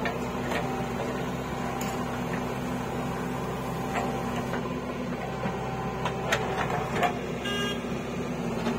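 JCB 3DX backhoe loader's diesel engine running steadily under load while the backhoe bucket digs soil, with a few short knocks from the bucket and arm.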